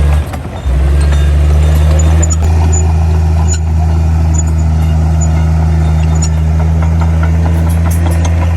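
Heavy diesel engine of earthmoving machinery running steadily with a low, even drone. It dips briefly about half a second in.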